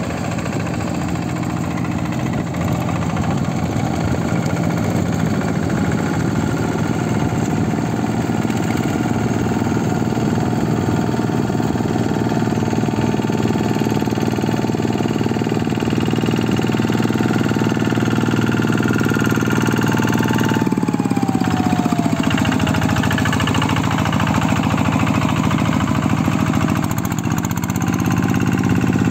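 Walk-behind hand tractor engine running steadily while plowing a flooded rice paddy. About two-thirds of the way through, the engine note drops in pitch and settles at a lower, changed sound.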